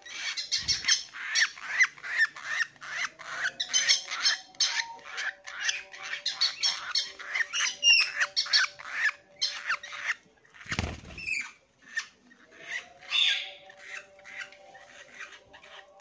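Young hand-fed lovebirds chattering at the syringe, a busy stream of rapid, squeaky high chirps. There is a dull thump about a second in and another near the end.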